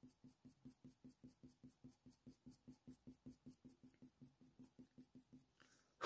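Faint, quick, even strokes of a Polychromos coloured pencil on hot-press watercolour paper, about five strokes a second, laying light shading into fur. A single sharp click at the very end.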